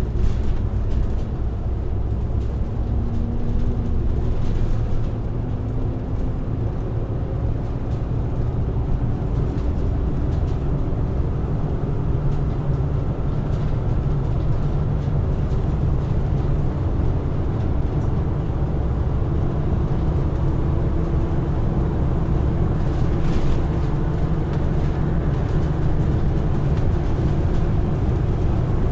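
Diesel engine running steadily at an even speed, a continuous low rumble.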